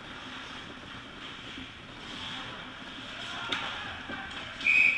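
Ice hockey play heard close to the goal: skates scraping the ice and sticks working, with a single sharp knock about three and a half seconds in. Near the end a referee's whistle blows once briefly, the loudest sound, stopping play.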